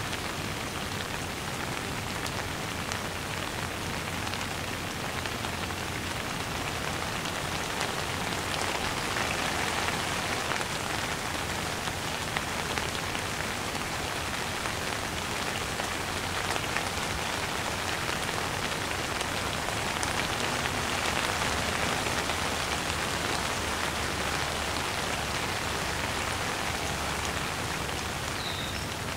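Steady heavy downpour of rain: an even hiss of falling rain with individual drops ticking close by.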